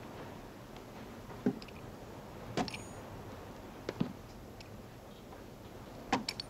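Slow, deliberate boot footsteps: four separate steps about a second to a second and a half apart, a couple with a light metallic jingle, over a low steady hiss.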